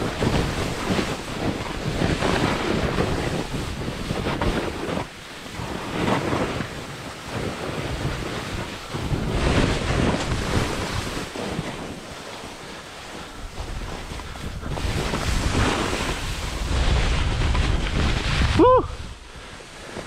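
Snowboard edge scraping and hissing over firm, frozen spring snow that has not softened after freeze-thaw, swelling and fading with each turn, with wind on the microphone. Near the end, a brief rising squeak.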